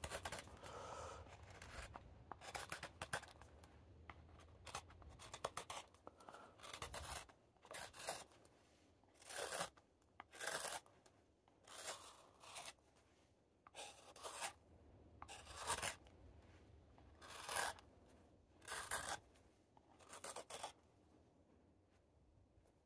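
A straight carving knife slicing shavings from the inside of a green, undried wooden cup: a string of short, faint cuts, about one every second or so.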